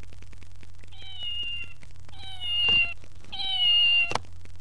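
Build-A-Bear stuffed cat's sound chip playing a recorded meow three times as the toy is hit, each meow under a second long and gently falling in pitch. Sharp knocks from the hits come near the end of the second and third meows.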